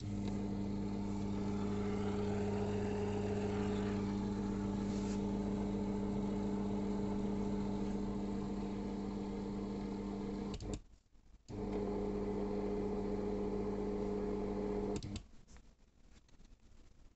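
Smart electric curtain-track motor running with a steady electric hum. It cuts out about ten and a half seconds in, starts again under a second later, and stops near the end.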